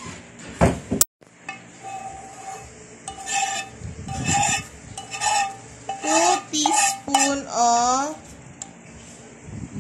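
A metal spoon scraping and clinking against a frying pan while oil is scooped out, in a series of short, squeaky scrapes about a second apart.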